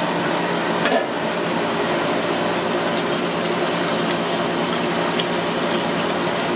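Steady rushing noise of a stove with a large aluminium stockpot of water at a rolling boil. There is a short metallic knock about a second in, and liquid is poured from a glass bottle into the boiling water.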